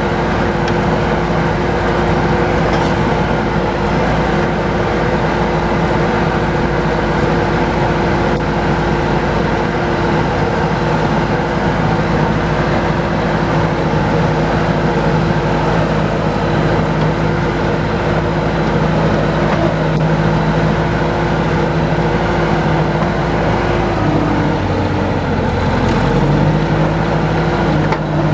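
Engine of a working machine running steadily as it travels in high-speed range. About three-quarters of the way through, the engine note drops, then comes back up shortly before the end.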